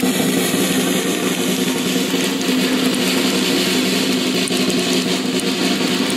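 Live band music: a chord held steady over drums, loud and unbroken.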